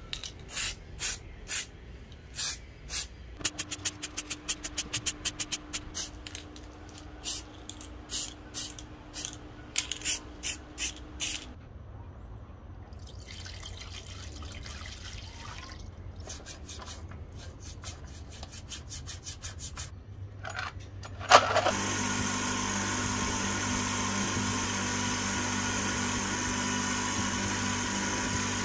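A string of sharp clicks and knocks, with a faint steady hum under part of them. About three-quarters of the way through, a loud click and a motor starts, then runs steadily with a high whine.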